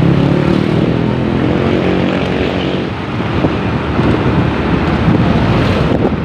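Motorcycle engine running at a steady speed while riding, over road and wind noise. The even engine drone stands out in the first half and then fades into the rushing noise.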